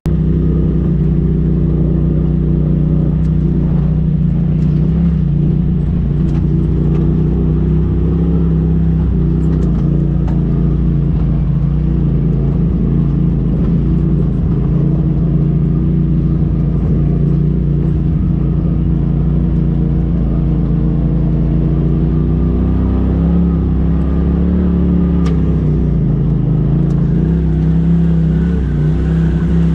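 Engine of a Polaris RZR Turbo S side-by-side, a turbocharged twin, running steadily at low trail speed, heard from the cab. Its pitch dips and rises a little near the end as the throttle changes.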